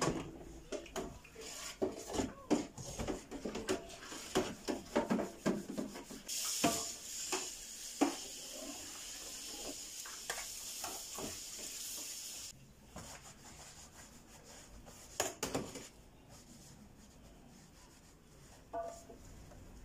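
Sponge scrubbing and knocking of a deep fryer's lid in a stainless steel sink. Then a tap runs for about six seconds as the lid is rinsed, followed by fainter rubbing as it is wiped with a cloth.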